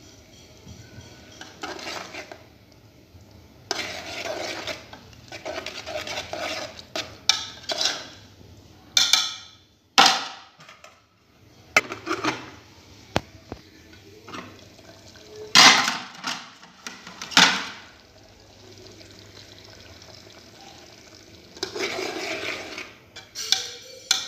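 Metal spoon scraping and clinking against a cooking pot while stirring, in irregular bouts, with several sharp metallic clanks.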